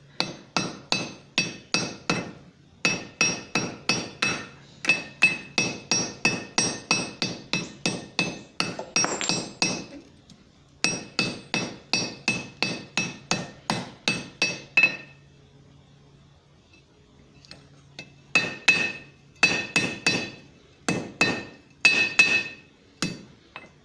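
Light hammer taps on a red-hot quarter-inch steel-rod Turk's head knot seated in a hemispherical swage on an anvil, about three taps a second, each with a short metallic ring. The knot is being tapped and rotated to tighten it and make it round. The tapping stops briefly about ten seconds in and for a few seconds later on.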